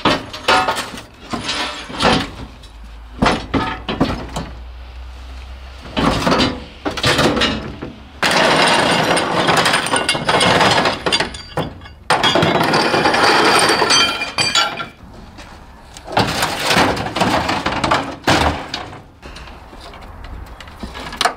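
Clanking and knocking of metal car parts being handled, then a hand-held power tool running hard against the car's steel bodywork in two long runs of several seconds each, with more metal clanks after.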